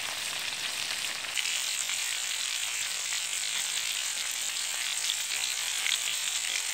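Cornmeal-coated fish deep-frying in hot oil in a plow-disc pan over a wood fire: a steady sizzle with dense fine crackling, louder from about a second and a half in as the pieces are turned.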